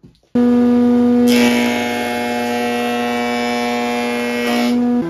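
Kity 636 planer-thicknesser running with a steady motor hum. From about a second in until near the end, a board fed over its freshly set cutterhead blades adds a loud cutting hiss. At the very end the machine is switched off and its pitch begins to fall as it winds down.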